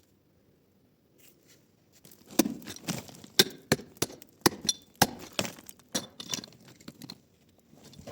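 A series of about a dozen sharp knocks and clinks, irregularly spaced, starting about two seconds in and stopping a second before the end, each with a short ring.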